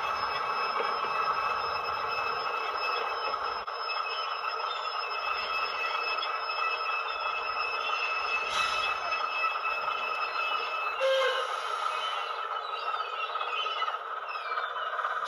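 Soundtraxx DCC sound effects from a model locomotive and a sound-equipped boxcar: a train running, with rail noise and a steady high wheel squeal. The squeal stops about eleven seconds in with a short louder burst.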